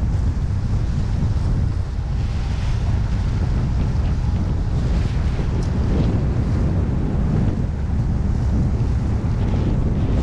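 Wind buffeting the microphone in a steady low rumble, over choppy water washing against a pier.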